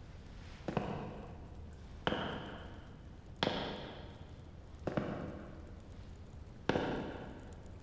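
Sparse background score: a struck chord about every second and a half, five in all, each ringing out and fading before the next.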